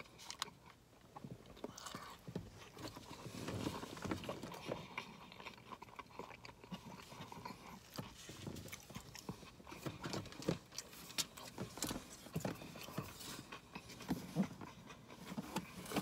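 Close-up chewing and mouth sounds of a person eating a mouthful of a roast beef sandwich, with many small irregular wet clicks and smacks.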